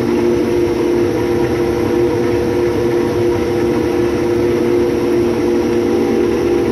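A 6130 combine harvester running steadily while cutting wheat: an even drone with a strong held hum over a low rumble.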